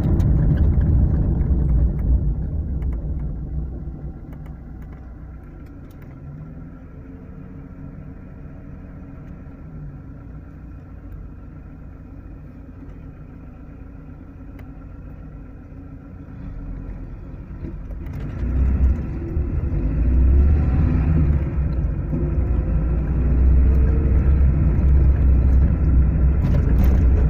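IZh-2126 Oda hatchback driving, heard from inside the car: a low engine and road rumble that dies down to a quieter run for several seconds, then builds up again about eighteen seconds in.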